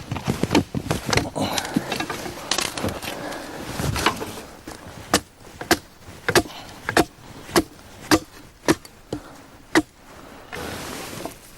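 A hazel stake being sharpened with a blade: a series of sharp chopping strokes on wood. The strokes are quick and irregular at first, then come steadily, about one every half second, and stop shortly before the end.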